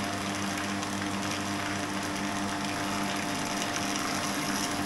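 Electric surface jet pump of an IBO hydrophore set running with a steady hum, unable to draw water up from the well.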